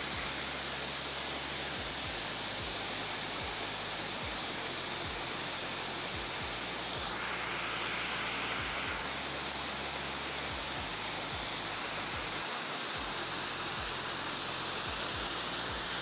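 Steady rushing hiss of distant waterfalls across a forested valley, with light low bumps on the microphone. A higher hiss swells briefly about halfway through.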